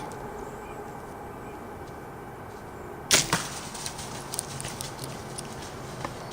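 Bow shot at a deer: a loud, sharp crack of the released bowstring about three seconds in, with a second smaller crack right after, then scattered light crackling of leaves and brush.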